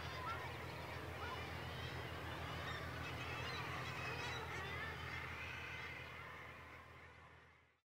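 Common guillemot breeding colony on sea-cliff ledges: many birds calling over one another in a dense, continuous chorus over a steady low rumble, fading out near the end.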